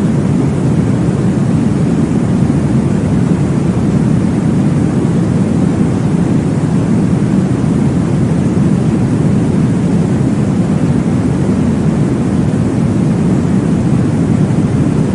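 Steady, deep whooshing noise, a womb-style sleep sound for babies imitating blood flow in the uterus, with most of its weight low and no breaks or changes.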